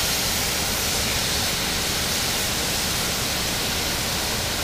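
Catfish fillets sizzling in butter in a frying pan on a portable gas stove: a steady hiss.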